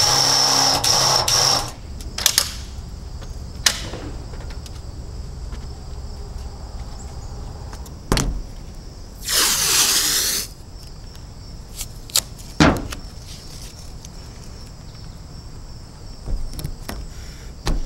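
Power tool running against the van's sheet-metal roof with a high whine, cutting off about two seconds in. Then scattered clicks and knocks, and another short burst of the tool, about a second long, about nine seconds in.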